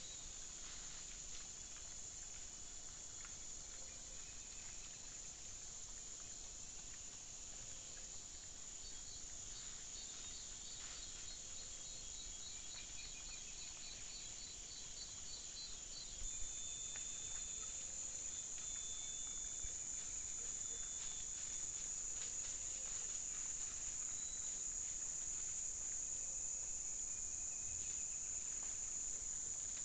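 Steady high-pitched insect chorus of cicadas or crickets in tropical forest, with a rapid series of high chirps in the middle. Faint rustles and clicks of peccaries rooting and stepping through dry leaf litter come and go. The chorus gets louder about halfway through.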